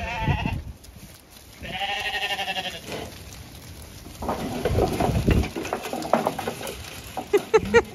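Zwartbles sheep bleating as the flock charges out to feed. The loudest call is a long, wavering bleat about two seconds in, and there are rougher bleats and scuffling hooves later, with a quick patter of clicks near the end.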